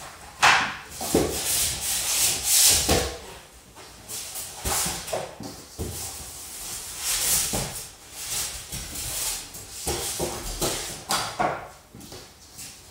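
Cardboard packing being pulled out of and slid against a large cardboard box, giving irregular scraping, rubbing and rustling strokes.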